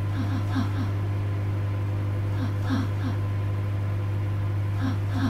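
Microwave oven running with a steady low hum, with short chirps in twos and threes every second or two.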